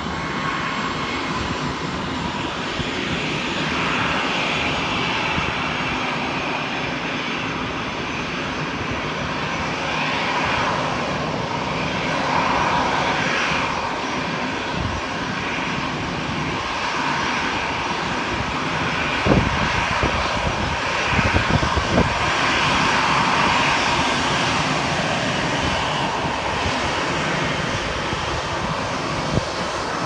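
Jet airliner engines running at taxi power, a steady rushing noise that swells and fades slightly. Wind buffets the microphone, with a cluster of sharp knocks about two-thirds of the way through and another just before the end.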